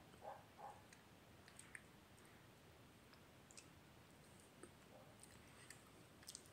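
Near silence with scattered faint mouth clicks from a person eating a creamy dessert, and two soft mouth sounds in the first second.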